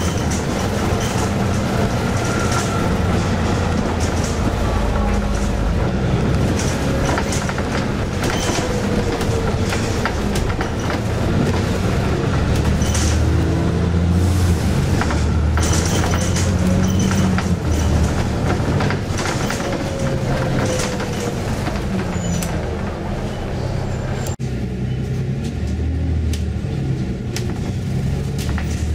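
Inside a moving bus: the engine's drone and road noise, with the body and fittings rattling and a faint whine that rises and falls as the bus changes speed. About three-quarters through, the sound turns abruptly duller.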